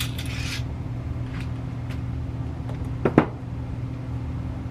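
Handling noise from a muzzleloader and its cleaning rod on a bench gun rest: a few light clicks, then two quick knocks about three seconds in, over a steady low hum.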